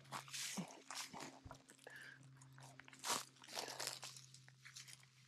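Dry pine-needle litter crunching and rustling in irregular bursts, the loudest about three seconds in.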